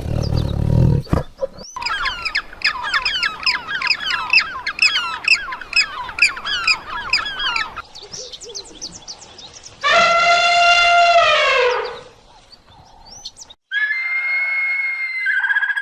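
A run of different animal calls: a low roar fades out about a second in, then about six seconds of rapid bird chirping. After that comes a long, evenly pitched call of about two seconds that falls away at its end, and near the end a shorter high-pitched call.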